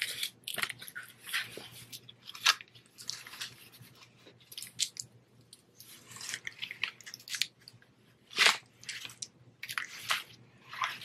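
Nylon straps and plastic buckles of a chest-mount harness rustling and clicking against a cotton shirt as the harness is pulled off over the torso, with irregular crackles and a sharper click about eight and a half seconds in.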